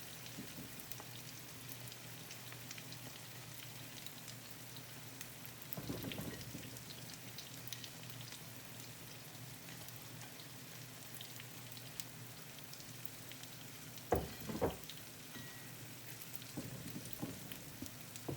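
Seafood paella cooking gently in its pan, a faint steady sizzle and crackle, with a few soft knocks, about six seconds in and twice near fourteen seconds.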